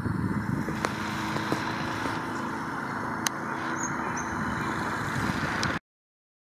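Steady outdoor background noise, with a few faint clicks and two brief high chirps about four seconds in, cutting off suddenly near the end.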